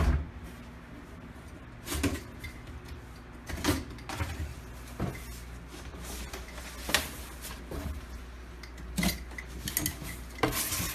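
A large cardboard box being handled and opened: irregular knocks and thumps of the cardboard, about a dozen over several seconds.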